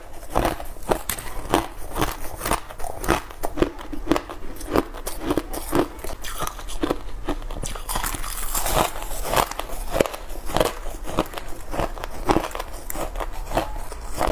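A person biting and chewing chunks of cloudy ice close to the microphone: a quick, irregular run of crisp crunches and cracks, several a second.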